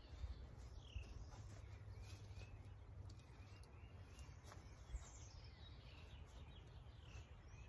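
Faint birds chirping, short repeated rising and falling notes, over a low steady background rumble, with one soft knock about five seconds in.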